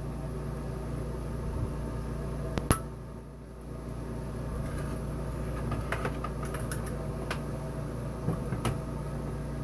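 A steady low hum in a small enclosed space, with a sharp click a little under three seconds in and a few lighter clicks later on.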